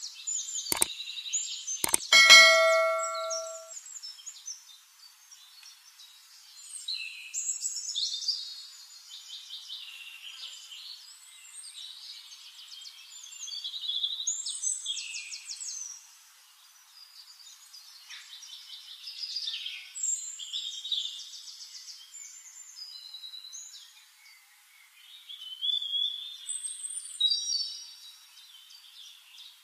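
Birds chirping and singing in bursts of high, quick trilling notes, a fresh phrase every few seconds. About two seconds in, a few sharp clicks and a bright ding that rings for a second or so.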